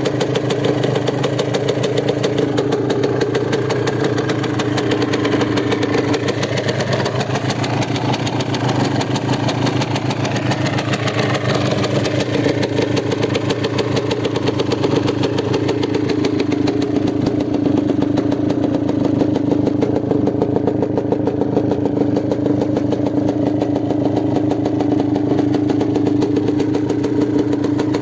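Yamaha DT200WR two-stroke single-cylinder engine idling steadily through an aftermarket RSV expansion chamber and silencer.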